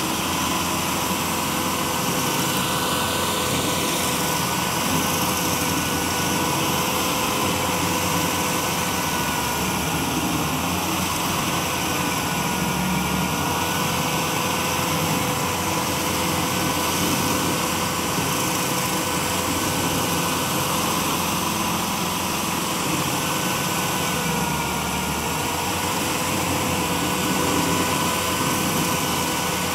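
Tracked stump grinder running at working speed while its cutter wheel grinds into a stump: a steady engine drone with a high whine. The whine sags slightly in pitch twice as the wheel takes load.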